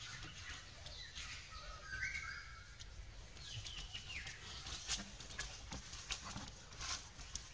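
Faint high-pitched animal calls: a few short squeaks about two seconds in and a falling call near four seconds, with scattered light rustles and clicks.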